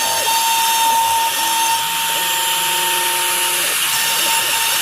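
CNC router spindle whining steadily as its bit cuts wood during a rough clearance pass, with lower machine tones that shift pitch, hold, and shift again as the axes move.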